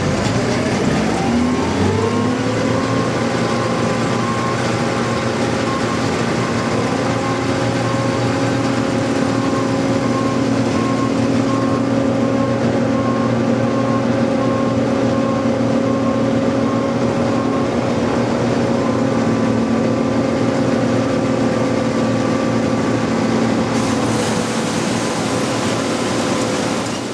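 John Deere C670 combine harvester running, its engine rising in pitch over the first couple of seconds and then holding a steady drone.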